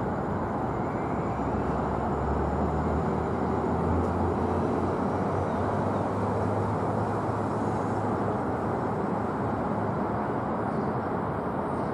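Steady, even rumble of a distant Boeing 747-8's four GEnx jet engines on landing approach.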